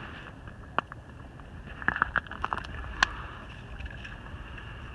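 Low steady rumble of wind on the microphone, with a few faint clicks and knocks scattered through it and one sharper click about three seconds in.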